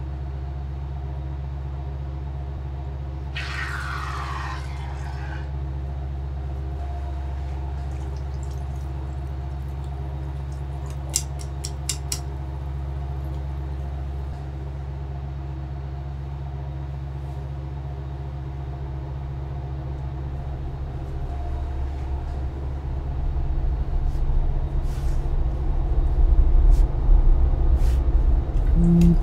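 Low, steady drone of a film's soundtrack, several held tones at once, with a brief falling hiss a few seconds in and a few sharp clicks near the middle. Over the last several seconds a pulsing low rumble swells louder.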